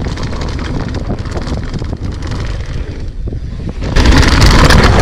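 Mountain bike descending a loose gravel trail: wind buffeting the on-bike camera microphone, with tyres on gravel and the bike rattling. The noise jumps suddenly much louder about four seconds in.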